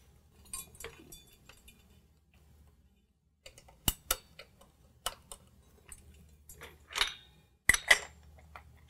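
Sharp metallic clicks and clinks of snap ring pliers and a steel snap ring being worked into a TH400 forward piston housing, its return springs held down in a spring compressor. They are scattered and irregular, starting a few seconds in.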